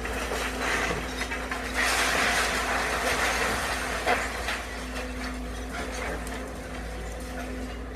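Bulldozer knocking down a building: its engine runs steadily under the clatter and crunch of breaking debris, loudest from about two to four seconds in.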